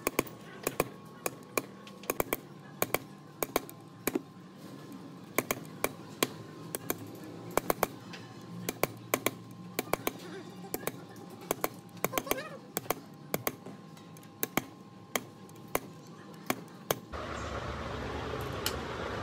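Sharp, irregular taps, two or three a second, from hand work on a starter motor armature, over faint background music. A little before the end a steady machine whir cuts in abruptly.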